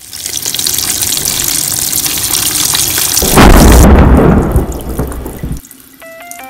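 A steady rushing hiss like heavy rain, then a loud deep boom about three seconds in that rumbles away over the next two seconds, like a thunderclap. Soft chime-like music notes begin near the end.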